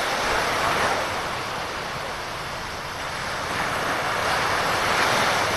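Small waves washing onto the beach in two swells, one in the first second and another from about four seconds in, over a steady wind rush on the microphone.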